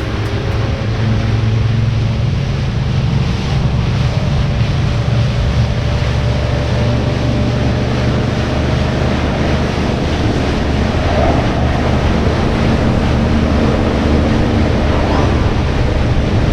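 Motorboat under way: the engine runs at a steady hum while water rushes along the hull, with wind buffeting the microphone.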